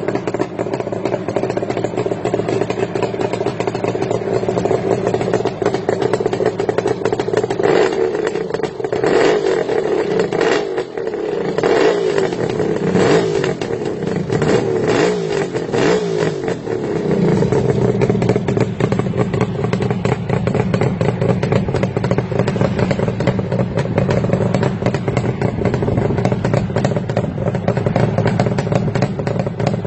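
Suzuki GT750's two-stroke three-cylinder engine idling through chrome silencers. About a third of the way in it is revved in a run of short throttle blips for several seconds, then settles back to a steady idle.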